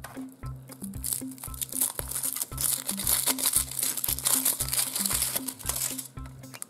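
Thin foil wrapper crinkling and crackling as it is peeled off a chocolate egg, starting about a second in and dying away near the end, over background music with a pulsing bass beat.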